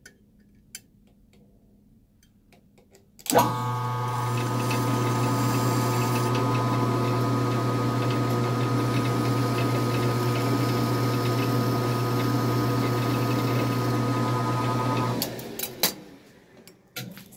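Metal lathe switched on about three seconds in and running steadily with a strong hum while a hacksaw blade is held against the spinning rod in its chuck; it is switched off about fifteen seconds in and winds down, followed by a few clicks.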